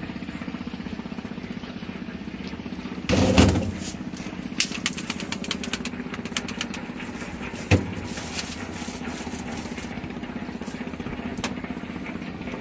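An engine idling steadily in the background. Over it, plastic syrup bottles and a plastic cup are handled: a loud rustling clatter about three seconds in, then a run of small sharp clicks and taps, and a single knock near the eight-second mark.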